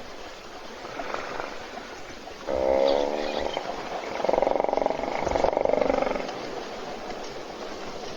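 Hippopotamus vocalizing: one drawn-out call about two and a half seconds in, then a rapid, pulsing run of calls lasting about two seconds.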